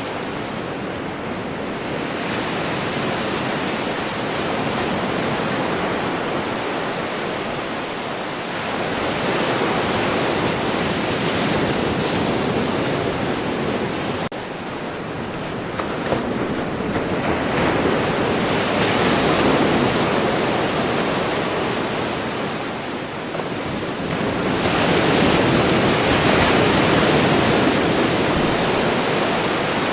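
Sea waves washing onto a shore: a continuous rush of surf that swells louder about every eight seconds as each wave comes in and then eases off.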